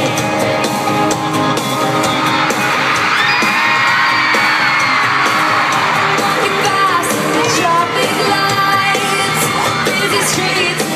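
Live pop-rock music from a full band played loud through an arena sound system, with singing and a crowd screaming and whooping over it.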